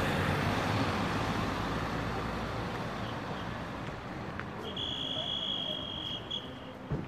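Road traffic: a car passing close by, its rush loudest at first and slowly fading away. About five seconds in, a steady high-pitched beep sounds for about a second and a half.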